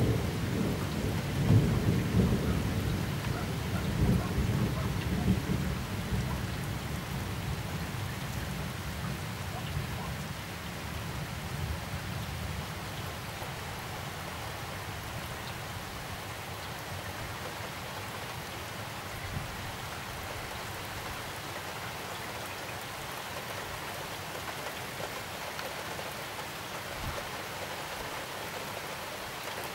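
Thunder rumbling and dying away over the first ten seconds or so, over steady rain; then the rain alone, falling evenly.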